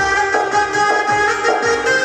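Instrumental interlude of a worship song played on an electronic keyboard: a sitar-like melody moving note to note over regular drum strokes.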